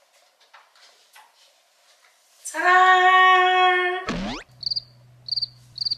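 A loud sung "ahh" note held for about a second and a half, cut off by a quick sweep, then a crickets sound effect: short high chirps about twice a second over a low hum, the comic "awkward silence" cue.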